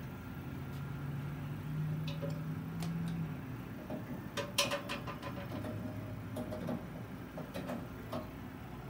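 Light metallic clicks and knocks from the arms and platens of an M&R Chameleon manual screen-printing press being handled, in a few quick clusters in the second half, over a low steady hum that stops about a third of the way in.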